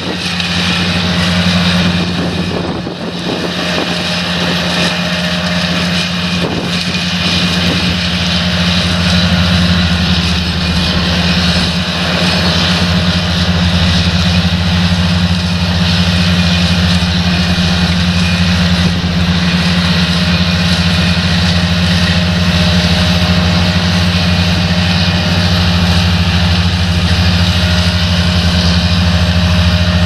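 Grimme Varitron 270 self-propelled potato harvester working a row: its diesel engine drones steadily under load, with the running noise of the lifting gear. The loudness dips briefly about two seconds in, then holds.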